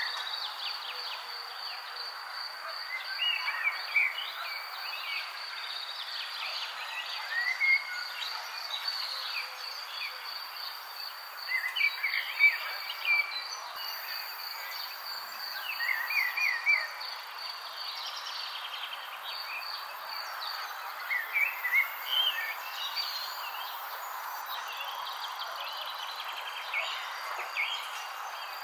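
Steady cricket-like insect trilling, with scattered short chirping calls over it.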